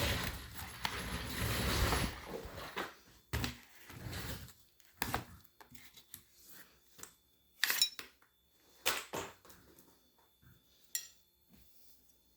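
Cardboard keyboard box being opened and handled: a loud scraping rush for the first two seconds or so, then scattered taps, knocks and a few sharp clicks that die away near the end.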